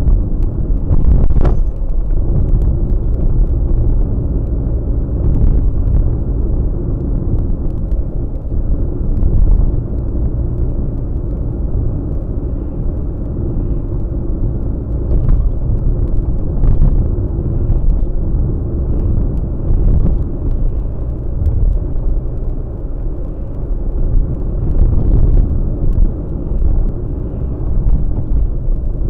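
Steady low rumble of car engine and road noise inside a moving car, picked up by a dashcam's built-in microphone, with a brief click a second or so in.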